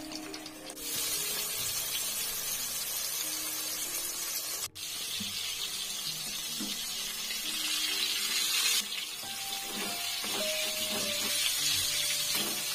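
Mackerel frying in hot oil in a pan, a steady sizzle that cuts out briefly about a third of the way through, over soft background music.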